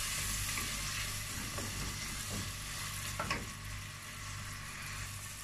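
Chopped onions and peppers sizzling steadily in butter and oil in a stainless steel pot as they are sautéed and stirred with a wooden spoon. A single light knock about three seconds in.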